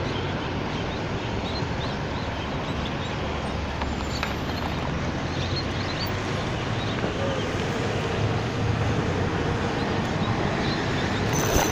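Steady low rumbling outdoor background noise, with a few faint light ticks.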